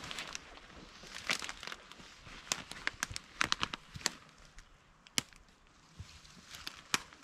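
Footsteps through woodland brush: irregular crunches and sharp crackling snaps, several clustered between about one and four seconds in and another near the end.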